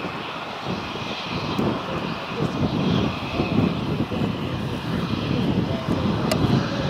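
Twin turbofan jet engines of an F/A-18F Super Hornet running as the jet rolls along the runway: a steady, loud rumble that swells and eases.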